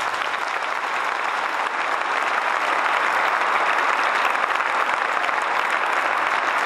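An audience applauding: a dense wash of clapping that builds over the first two or three seconds, then holds steady.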